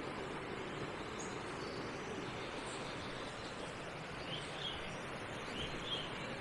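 Steady rush of a brook tumbling over stones, with a few short, faint bird chirps in the second half.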